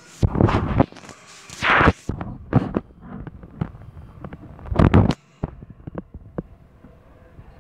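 Loud action sound effects from a dinosaur film trailer playing through a TV's speakers: a string of crashes and booms over the first five seconds, then a few lighter knocks.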